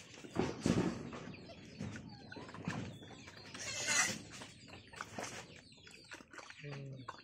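A sow, her piglets and chickens feeding together at a feed bowl: irregular pecking, chewing and scuffling noises with chicken clucks. There is a louder rustling burst about four seconds in and a short low grunt near the end.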